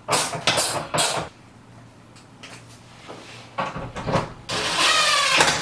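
Tools and metal parts clattering in handling, then a grating squeal lasting about a second near the end.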